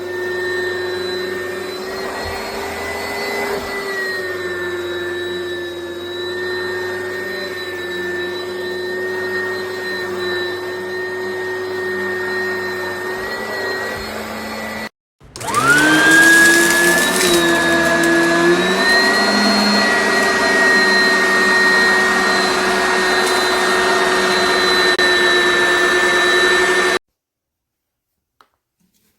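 Oreck Commercial XL upright vacuum cleaner running with a steady high motor whine. About halfway it breaks off briefly, then starts again with the whine rising as the motor spins up. It cuts off abruptly a couple of seconds before the end.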